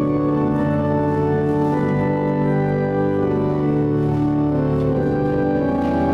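Church organ playing sustained chords that change slowly.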